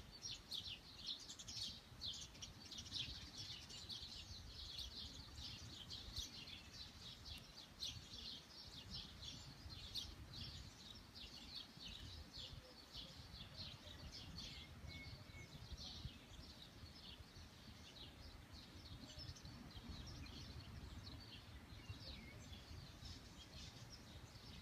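Small birds chirping: many quick, short high chirps, busiest in the first half and thinning out towards the end, over a faint low rumble.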